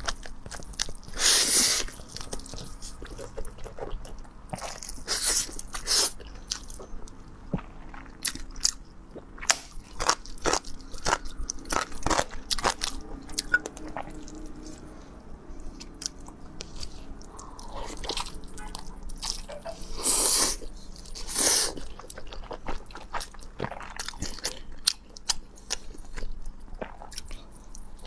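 Close-miked eating: repeated bites into food and chewing, heard as many short sharp clicks, with louder bursts of biting about a second in, near five seconds and around twenty seconds in.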